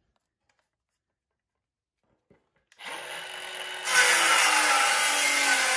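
Milwaukee M12 Fuel 5-3/8-inch brushless cordless circular saw spinning up nearly three seconds in, then cutting a 45-degree bevel through a primed board about a second later, much louder once the blade is in the wood.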